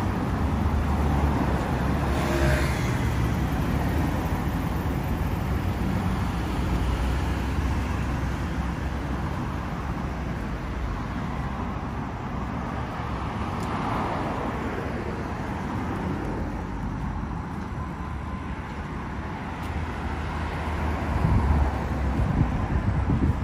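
Road traffic: cars passing on the street alongside, a steady rumble of tyres and engines that swells as single vehicles go by and grows louder near the end.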